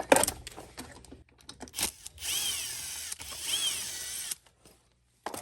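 Cordless drill/driver run in two short spurts, its whine rising and falling each time, after some clicks and rattles of tools and parts. It is backing out the fasteners to take the old carburetor off a small bike engine.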